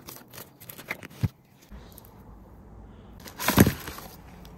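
Cardboard packaging being handled: a few light clicks and taps in the first second or so, then a louder, brief scraping rustle about three and a half seconds in as an inner box is slid out of its cardboard sleeve.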